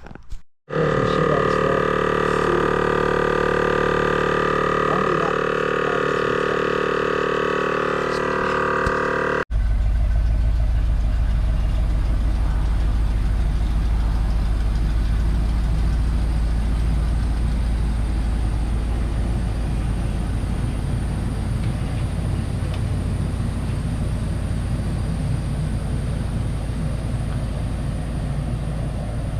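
Vixen air horns blowing one long, loud, steady chord of several tones for about nine seconds. They cut off abruptly, and a steady low vehicle engine rumble follows.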